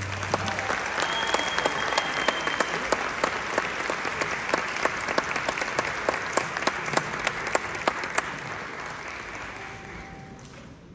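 Audience applauding at the end of a mariachi song. The clapping thins out after about eight seconds and dies away near the end.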